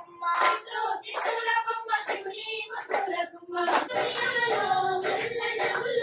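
High female voice singing a Bathukamma folk song, with hand claps keeping time about once a second.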